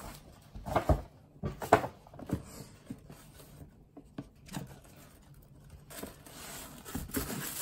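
Rigid cardboard magnetic gift box being handled: a series of knocks and taps as it is moved and its lid is pulled open, then a rustle of tissue paper near the end.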